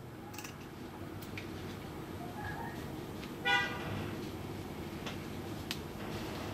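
Scissors snipping a ribbon near the start, with a few faint clicks, over a steady low hum. About halfway through comes one brief horn-like toot, the loudest sound.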